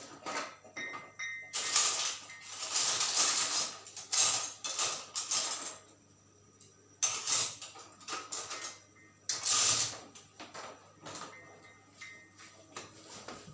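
Kitchen handling noises: several bursts of rustling and clattering, with smaller clicks in between, as instant-noodle ingredients and utensils are handled.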